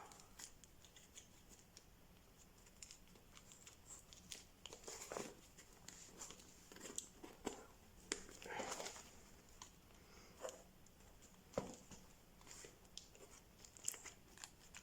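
Faint handling of a notebook cover, paper notebooks and a pen: scattered light taps, rustles and scrapes, with a sharper tap about three quarters through.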